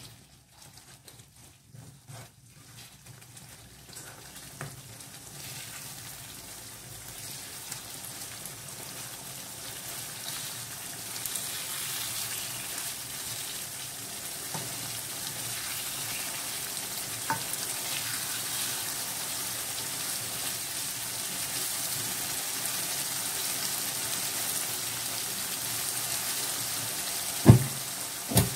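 Thick pineapple pajeri sauce sizzling in a nonstick wok, the sizzle building steadily louder, with a few light spatula ticks. Two sharp knocks about a second apart near the end, the spatula striking the pan.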